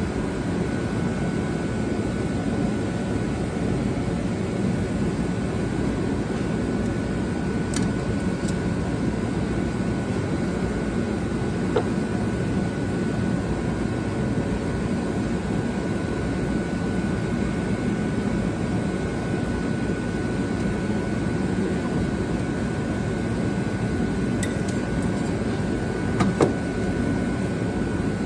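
Steady blower-like drone of a running machine with a faint constant whine, and a few light metallic clicks from a socket and extension working on bolts under the car.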